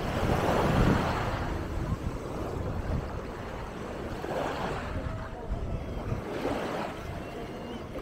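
Small waves breaking and washing up a sand beach, swelling three times, over a steady low rumble of wind on the microphone.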